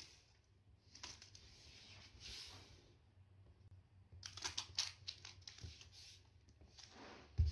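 Plastic candy wrapper crinkling in short bursts as a kitten bats and paws the wrapped candy on a wooden floor, with a quick cluster of crackles about four to five seconds in. A dull thump near the end is the loudest sound.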